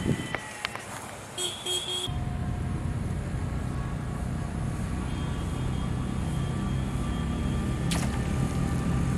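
A motor engine running with a low, steady drone that starts abruptly about two seconds in and slowly grows louder.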